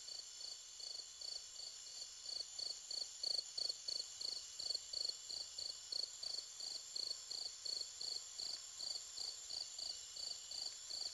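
Cricket chirping in a steady rhythm, about three chirps a second, over a steady high hiss.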